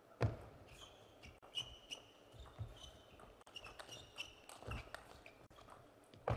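Table tennis rally: the celluloid-plastic ball clicks off the paddles and table in quick alternation, with shoe squeaks on the court floor. A sharp knock comes about a quarter second in and another near the end.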